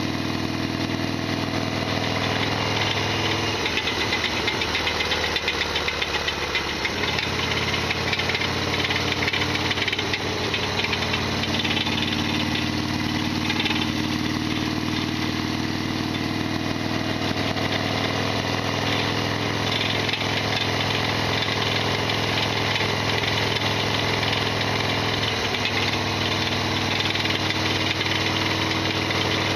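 Harley-Davidson Sportster XL1200R's air-cooled 1200 cc V-twin running steadily under way, with a loud mechanical clatter and rattle that the owner calls noisy as always ("ガタピシ", a big abnormal noise). The engine note shifts a few seconds in and again near the end.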